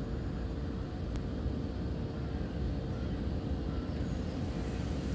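Steady low outdoor rumble with a faint constant hum, and a single short click about a second in.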